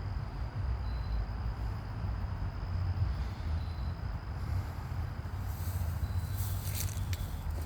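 Steady low outdoor rumble, with scattered rustling and crackling from about five seconds in.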